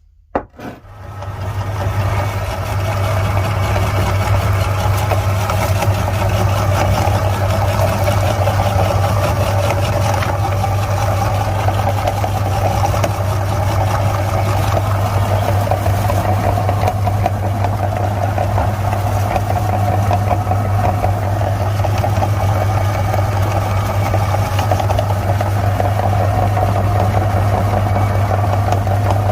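Electric meat grinder switched on with a click, its motor spinning up over about two seconds, then running with a steady hum while grinding crunchy candy.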